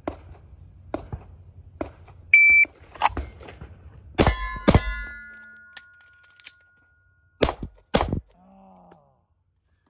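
Shot timer's start beep, then a handgun fires two quick shots, pauses nearly three seconds for a reload, and fires two more shots about half a second apart. A ringing tone lingers after the first pair of shots.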